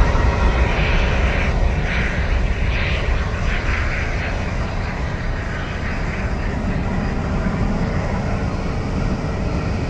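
Boeing 777's twin GE90 turbofan engines at takeoff power, a heavy low rumble that slowly fades as the airliner lifts off and climbs away.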